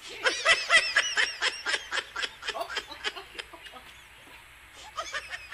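Domestic fowl calling in a rapid series of short, arching calls, several a second, dying away after about three and a half seconds, with a short second run near the end.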